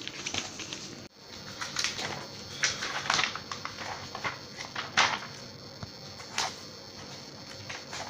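Paper rustling: a textbook's pages being flipped, followed by scattered short rustles and scrapes, a few of them sharper and louder, about five and six and a half seconds in.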